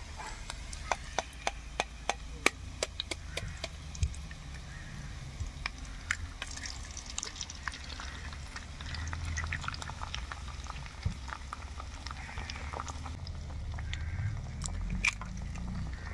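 Raw eggs tapped against the metal spatula and pan to crack them: a quick run of sharp clicks in the first few seconds, then scattered taps as the eggs are broken onto frying bitter gourd. A low steady rumble runs underneath.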